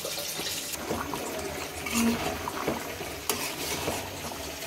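A wooden spoon stirring rice, lentils and vegetables in a pot of water: liquid sloshing, with scattered light knocks against the metal pot.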